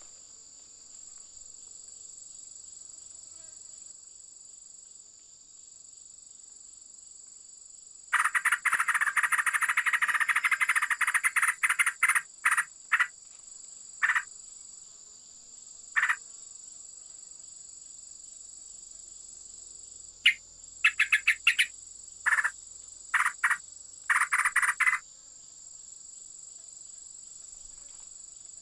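Steady high-pitched drone of insects in a jungle chorus. A much louder, fast-pulsing buzzy trill breaks in for about four seconds, then comes back in short bursts over the next dozen seconds.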